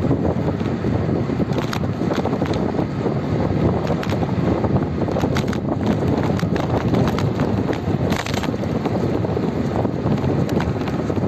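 Wind buffeting the microphone while moving along a road: a loud, uneven low rushing noise, with a few faint clicks scattered through it.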